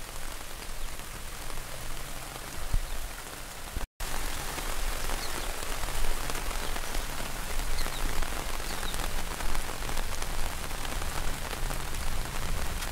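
Steady hiss of heavy monsoon rain falling, mixed with the rush of fast-flowing muddy floodwater. The sound cuts out for an instant about four seconds in, then comes back a little louder.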